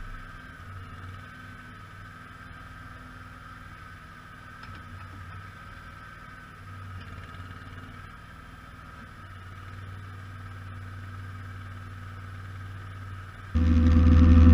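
Simplicity Legacy XL garden tractor engine running steadily at a moderate level, then suddenly much louder near the end.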